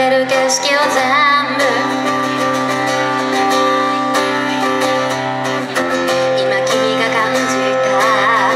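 A woman singing live to her own strummed acoustic guitar, with held notes wavering in vibrato about a second in and near the end.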